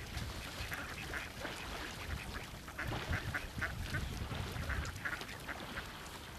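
Ducks quacking: a run of short calls from about a second in until near the end.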